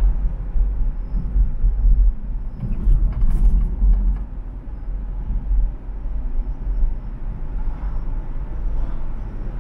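Road noise inside a moving car: a steady low rumble of tyres and engine.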